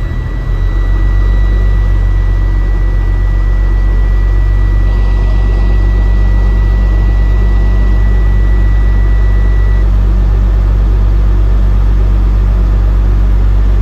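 Truck diesel engine running steadily at raised revs to build air-brake pressure, getting louder about half a second in. A steady high-pitched low-air warning buzzer sounds over it and cuts off about ten seconds in as the pressure comes up.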